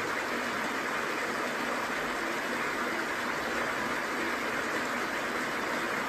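Small waterfall and the stream below it: a steady, even rush of falling and running water.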